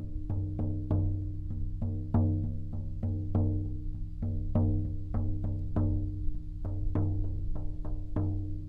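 50 cm shaman frame drum of deer hide on a red cedar frame, beaten steadily about two to three times a second with a thick felt-headed beater. Each stroke gives a deep tone with ringing overtones that carries into the next.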